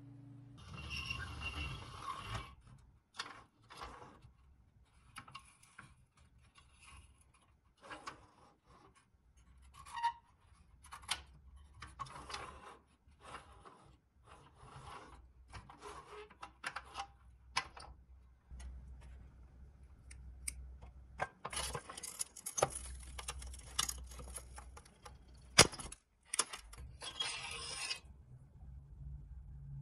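Hand work on a pressed-steel toy car: irregular scraping and rubbing strokes with clicks and light clinks of small metal parts. There are two longer stretches of scraping, about a second in and again for several seconds in the last third, and one sharp click near the end is the loudest sound.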